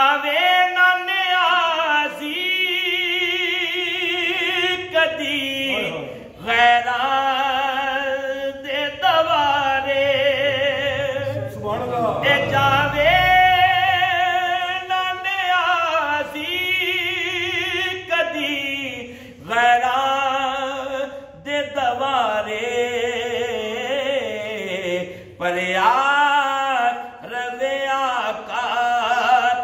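A man singing a Punjabi naat unaccompanied, in long held, ornamented phrases with a wavering vibrato, breaking off for breath every few seconds.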